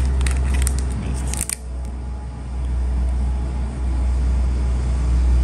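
Crinkling and light clicks of clear plastic amulet sleeves being handled in the first second and a half, over a steady low hum.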